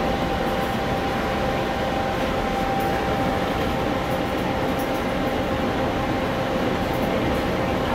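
Steady interior running noise of a moving Amtrak Superliner dining car: an even rumble with two faint steady tones held over it.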